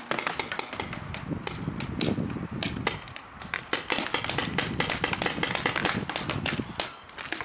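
Paintball markers firing, a dense, irregular string of sharp pops several times a second.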